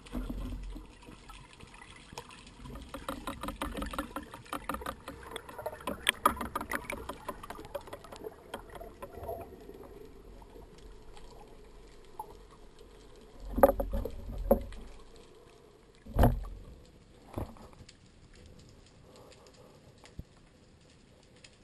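Underwater water noise picked up through a camera housing as a diver handles a speared fish at the surface: rapid crackling clicks and bubbling over the first several seconds, then two heavy thumps of water movement about 14 and 16 seconds in, fading to a faint hiss.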